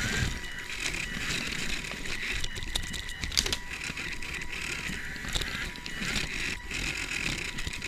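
The small geared DC drive motors of a line-following robot whirring steadily as it drives, with a faint high whine and irregular clicks and crackles from the wheels running over taped paper sheets.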